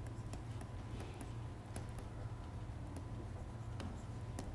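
Stylus tapping and scratching on a tablet while handwriting: faint, irregular small clicks over a steady low hum.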